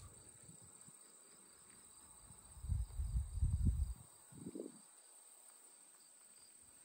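Late-summer insects, crickets, trilling steadily at a high pitch. A few low rumbling buffets on the microphone come between about three and four seconds in.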